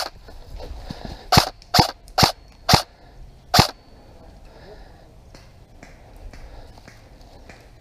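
Airsoft rifle firing five single shots in the first few seconds, each a sharp crack, spaced about half a second to a second apart; after that only faint scattered ticks.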